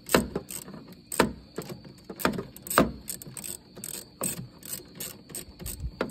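Irregular sharp clicks and knocks, about eight in a few seconds, from hands working a wire terminal and its nut onto the power stud of a van's engine-bay fuse box.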